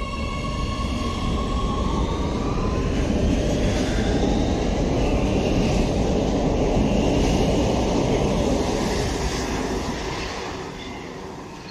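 Oslo Metro MX3000 electric train pulling out of a station: its traction motors whine, rising in pitch as it picks up speed, under a rumble of wheels on rail that builds as it passes and fades as it moves away.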